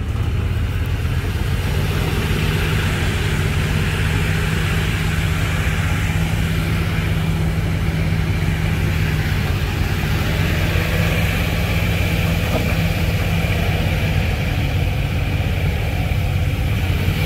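Vehicle engine running steadily at a low, even pitch.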